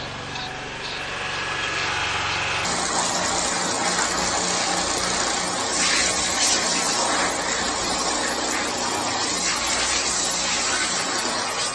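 A high-pressure sewer jetter's engine and pump running with a steady low hum. About three seconds in, a much louder, even rushing noise with a rapid regular pulse takes over.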